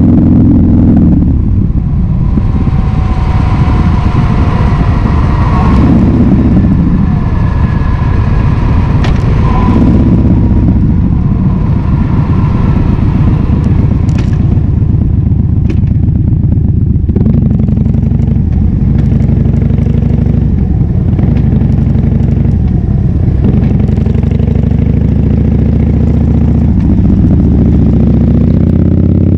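Harley-Davidson Fat Bob's V-twin engine running through a KessTech ESM3 exhaust while riding, its revs rising and falling through gear changes as the bike slows for a roundabout.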